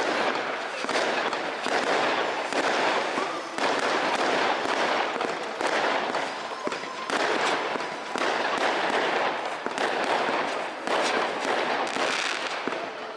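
Aerial fireworks going off in a rapid, continuous run of bangs with crackling between them.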